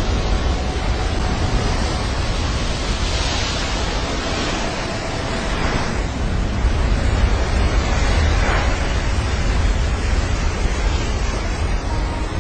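Heavy ocean surf breaking, mixed with wind buffeting the microphone: a steady rushing noise with a strong low rumble.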